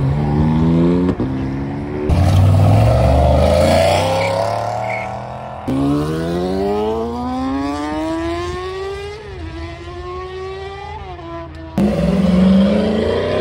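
Performance vehicles accelerating hard away from the camera, one after another. First comes a BMW M3 sedan pulling off. Then a sport motorcycle revs up through the gears in a long rising whine, with quick drops in pitch at two upshifts. Near the end a Pontiac Trans Am's V8 starts up.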